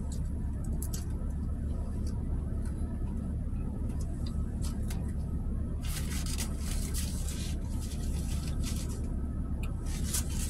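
Eating sounds in a car: small clicks and rustles of a fork and a clear plastic salad container, with a longer stretch of rustling about six seconds in and another near the end, as a paper napkin is handled. Under it all is a steady low hum inside the car.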